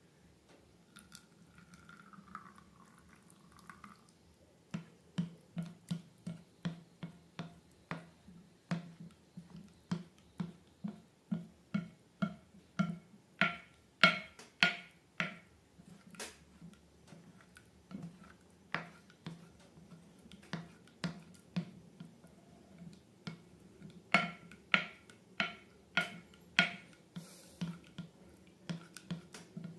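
Slime being pressed and worked by hand, giving a run of wet clicking pops at about two a second, loudest in the middle and again near the end.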